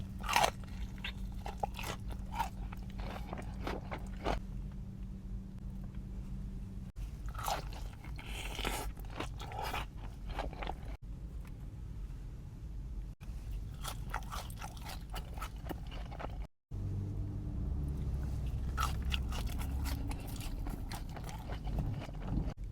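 Close-up crunching and chewing of crispy fried chicken wings, bites coming in clusters with pauses between, over a low steady hum. Several brief dropouts where clips are spliced together.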